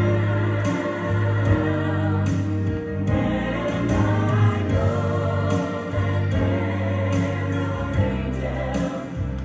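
A gospel song: voices singing over instrumental accompaniment with a strong bass line and light percussive taps.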